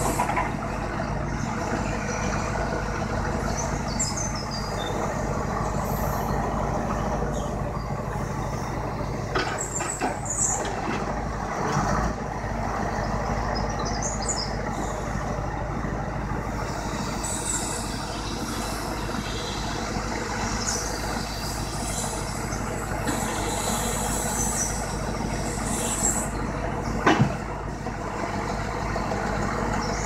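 Timber lorry's diesel engine running steadily to drive its hydraulic log-loader crane, with a few knocks and clunks as the grapple handles oak logs and a louder sharp knock near the end.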